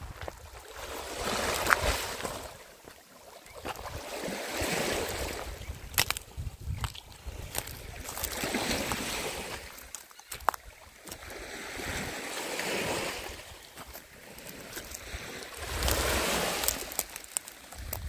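Small waves washing onto a pebbly shore, swelling and fading about every four seconds, with a few sharp clicks in between.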